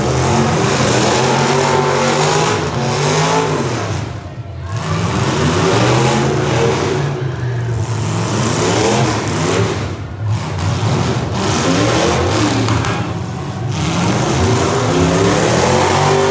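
Demolition derby car engines revving hard, their pitch climbing and falling again and again as the cars accelerate and back off, with short lulls between pushes.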